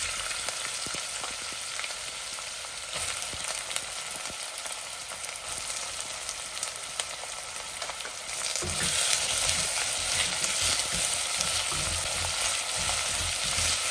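Sliced onions sizzling as they fry in hot oil in a stainless steel pot. About eight and a half seconds in, a wooden spoon starts stirring them, adding soft knocks and scrapes, and the sizzle grows louder.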